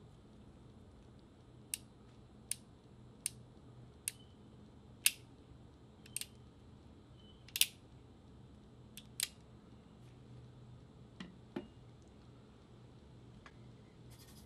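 Sharp metallic clicks from the action of a Pietta replica Colt 1851 Navy percussion revolver as its hammer and cylinder are worked by hand, about a dozen clicks at uneven intervals, the loudest about five and seven and a half seconds in.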